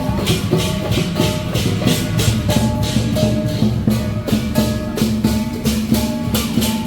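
Music with a fast, even beat of bright cymbal-like strikes, about four a second, under a melody of held notes.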